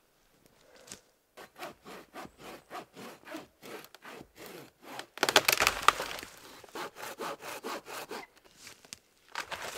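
Hand saw cutting through a piece of firewood in rhythmic back-and-forth strokes, about three a second, with a louder, faster run of strokes about five seconds in and a short pause near the end.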